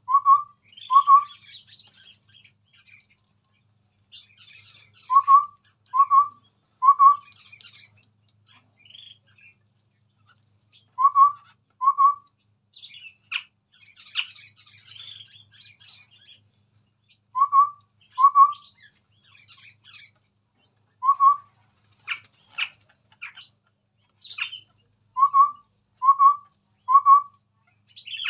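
Chestnut-rumped babbler singing: short, hollow whistled notes in bursts of two or three, repeated every few seconds, with high, rapid chattering chirps in between.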